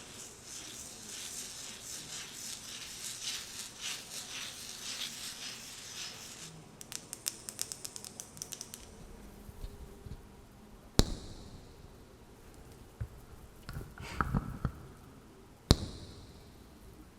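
Fingernails scratching and tracing over a wooden lid, then a quick run of light nail taps, then a few single sharp knocks on the wood with a short rub between them.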